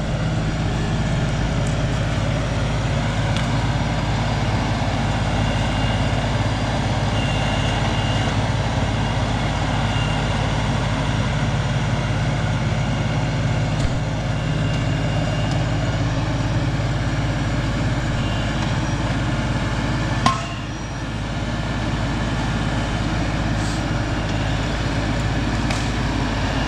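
LS compact tractor's diesel engine running steadily while it works its grapple loader, with a single sharp knock about twenty seconds in.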